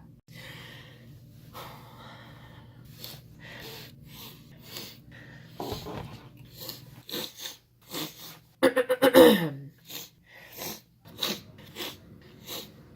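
A person sniffling over and over: short, sharp sniffs, one to two a second. About two-thirds of the way in comes one louder, voiced snort-like burst that falls in pitch.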